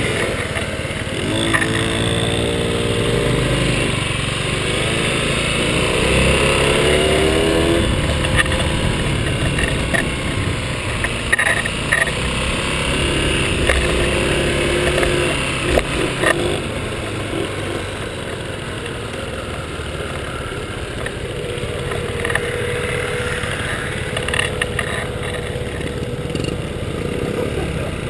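Small motor scooter engines buzzing as they ride, with the pitch climbing a few times in the first several seconds as the throttle opens, over wind rushing across the microphone.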